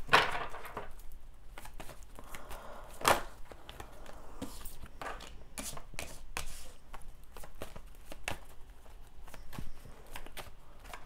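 A deck of oracle cards being shuffled overhand by hand: a continuous run of soft card-on-card slaps and clicks, with a few sharper taps, and a card laid down on the table mat partway through.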